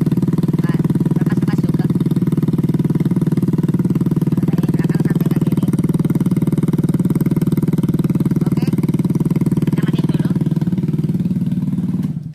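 A Vespa LX150 scooter's single-cylinder four-stroke engine idles steadily through a custom aftermarket stainless racing exhaust with an oval silencer, which gives it a mellow note. It is switched off with the key about twelve seconds in, and the sound dies away quickly.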